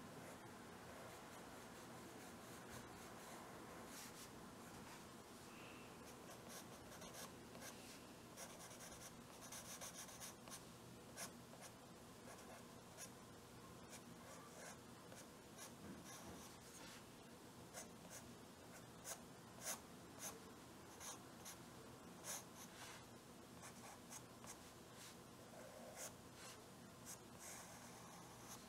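Soft graphite drawing pencil scratching faintly across drawing paper in short, repeated strokes as a glass vase is outlined. The strokes come thicker from about eight seconds in.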